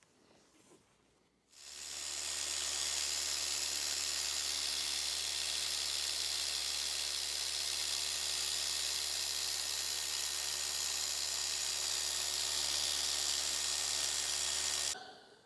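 Small electric machine polisher running at a steady speed against a wheel, a constant motor hum with a hiss over it. It starts about a second and a half in and cuts off near the end.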